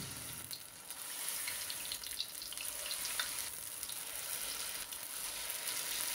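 Batter-coated baby potatoes sizzling as they shallow-fry in hot oil, a steady hiss with scattered small crackles, and a fork moving them about in the pan.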